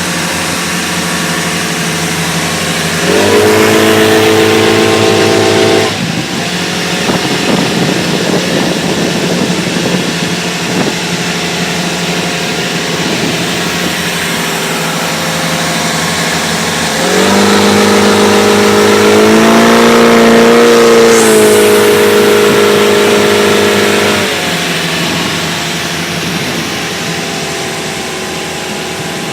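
The freshly rebuilt Volvo Penta sterndrive engine of a Cruisers Rogue 2530 runs under way. The throttle opens twice, about three seconds in for a few seconds and again for several seconds past the middle, and each time the engine note rises and gets louder before easing back. A rushing hiss of water and wind runs under the engine.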